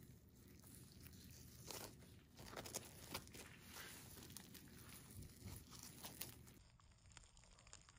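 Crisp breadcrumb crust of fried stuffed bread rolls crunching and crackling faintly as gloved hands squeeze and break it. The irregular crackles run for a few seconds and stop suddenly about six and a half seconds in.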